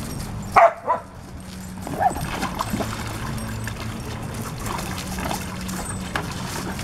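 A dog barks twice in quick succession about half a second in, then gives a few shorter barks around two seconds in. Water splashes in a plastic kiddie pool as a dog stands and paws in it.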